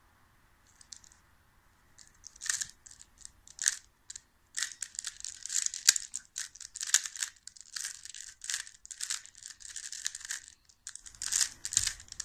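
Plastic 3x3 Rubik's cube being turned quickly by hand, its layers clicking and rasping as they rotate. A few separate turns come about two seconds in, then fast, nearly continuous runs of turns from about four seconds on.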